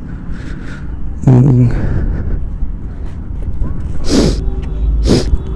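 A low steady rumble, with a short voiced murmur from a man a little over a second in and two sharp breath-like bursts near the end, the loudest sounds here.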